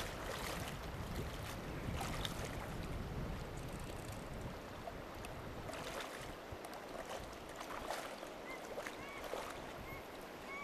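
Shallow stony river running, a steady rush of water, with wind rumbling on the microphone for the first few seconds.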